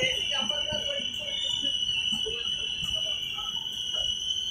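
Train brakes or wheels squealing as the train slows into the platform: a steady high-pitched squeal that wavers slightly in pitch. Faint voices and light knocks sit underneath.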